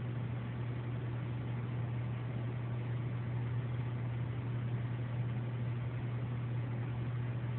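Steady low mechanical hum over an even hiss, unchanging throughout.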